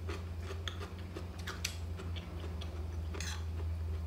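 A metal fork clicking and scraping against a ceramic plate as noodles are twirled: many small irregular ticks and a couple of longer scrapes, over a steady low hum.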